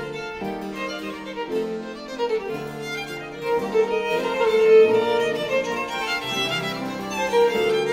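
Two baroque violins playing a seventeenth-century sonata in quick, busy lines over a lower continuo bass.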